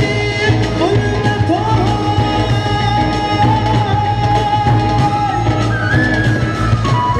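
A live band plays amplified Indian pop music while a singer holds long, sliding notes over a steady bass and beat.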